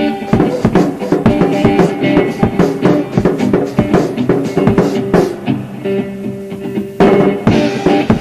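Live improvised rock: a drum kit plays a busy beat with bass drum under sustained guitar chords, and the band comes in louder about seven seconds in.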